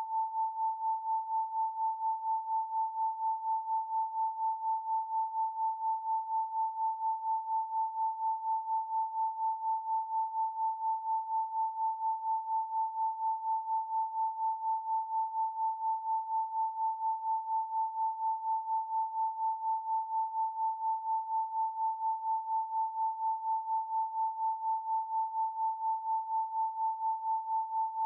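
A pure 888 Hz sine tone held at one steady pitch, with an even pulsing in loudness several times a second.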